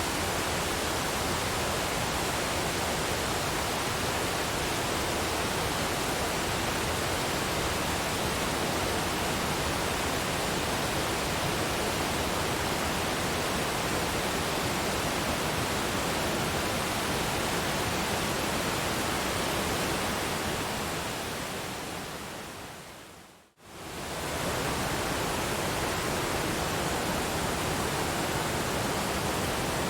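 Steady rushing of a waterfall. About twenty seconds in it fades down over a few seconds almost to silence, then swells back to full level within a second, like the seam where a recording loops.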